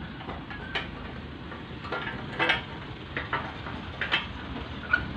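Scattered metal clinks and knocks, about seven in all, as a motorcycle exhaust pipe is handled and fitted onto the engine's cylinder head.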